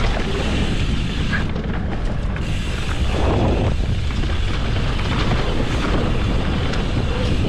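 Wind buffeting the microphone over the steady rumble of mountain bike tyres on a dirt trail, with scattered light clicks and rattles from the bike, during a descent.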